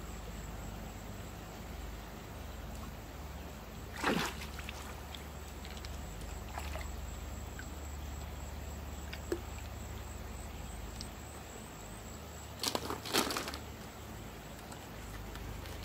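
Shallow stream water running steadily, with short splashes and sloshes as hands dig in the streambed, once about four seconds in and a quick cluster near the end.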